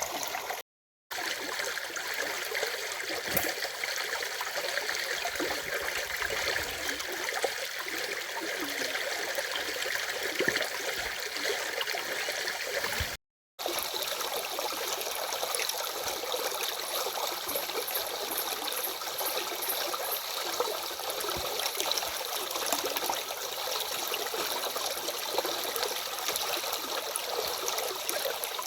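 Stream water running steadily over a small cascade, a continuous rushing and trickling. The sound cuts out to silence twice for a moment, about a second in and about halfway through.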